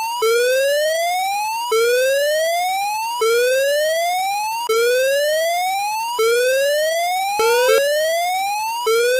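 Electronic emergency-alert 'whoop' siren tone: a harsh, buzzy tone that rises steadily in pitch over about a second and a half, drops back and rises again, repeating about seven times.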